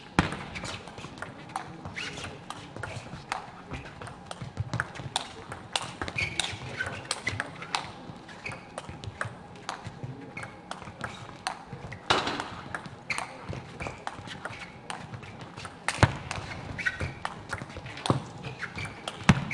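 Table tennis rally: the ball clicking off the bats and the table in a quick, irregular string of sharp ticks, with a few harder hits standing out.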